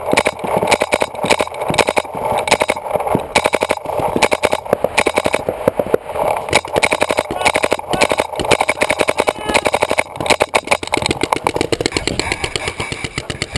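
Paintball markers firing in rapid strings of sharp shots, several a second, with hardly a pause.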